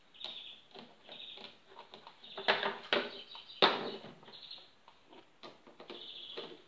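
Screws being driven by hand with a screwdriver into the plastic top cover of an electric lawn mower: irregular squeaks and scrapes, with a few sharp clicks and knocks, the loudest about two and a half and three and a half seconds in.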